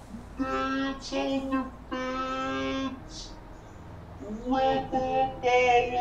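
A voice singing in slow, drawn-out held notes, a few phrases with short gaps between them; the notes waver in the last two seconds.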